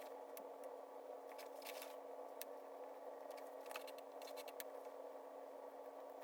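Faint scattered clicks and scrapes of a screwdriver working the screws on a carburetor float bowl, over a steady hum.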